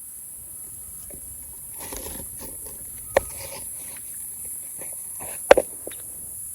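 Scattered light knocks and clicks of small monkeys moving about a wire cage, with a sharper knock about three seconds in and the loudest one about five and a half seconds in, over a steady high insect drone.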